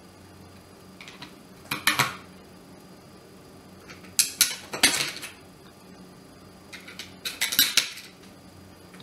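Hard plastic and metal parts of a dry iron clicking and clattering as the plastic body is handled and seated on the metal sole plate, in three short bursts about two, four and a half, and seven and a half seconds in.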